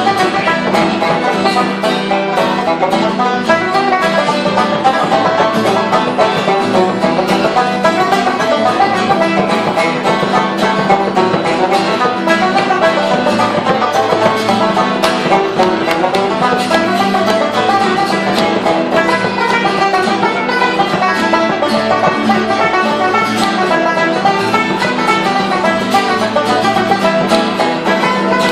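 Irish traditional session music: banjos and acoustic guitar playing a tune together, with button accordion and a frame drum, at a steady, even pace without singing.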